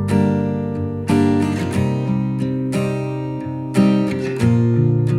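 Background music: acoustic guitar strumming chords, a new chord struck about once a second and left to ring.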